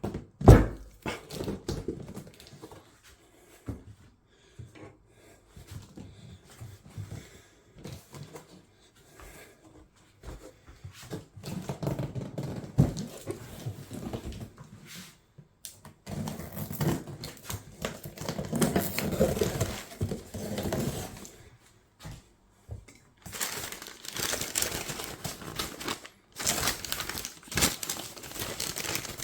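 Parcel packaging being handled and unwrapped: crinkling and tearing of wrapping with scattered knocks and clatter, and one loud thump about half a second in.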